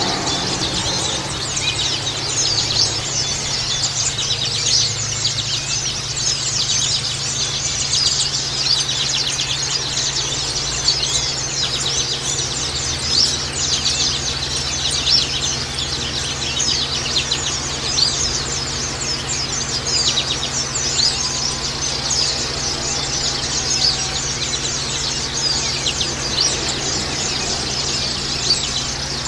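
White-eyes (Zosterops, pleci) twittering and singing in a dense, continuous stream of rapid, high chirps, over a steady low hum.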